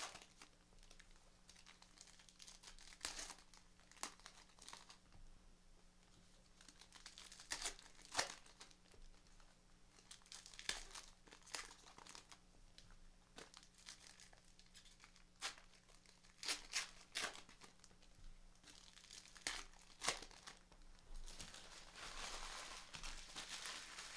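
Foil wrappers of baseball card packs crinkling and tearing as packs are opened, in scattered short crackles with a denser stretch of rustling near the end.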